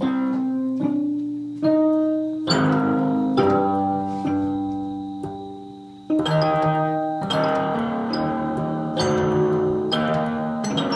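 1949 Deagan automatic harp playing a tune from its paper music roll: plucked notes and chords that ring and die away, a new one struck about once a second.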